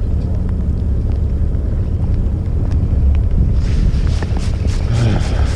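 Steady low rumble of wind on the microphone aboard a fishing boat. About two-thirds of the way in, a rapid even ticking of about five clicks a second starts as a baitcasting reel is cranked.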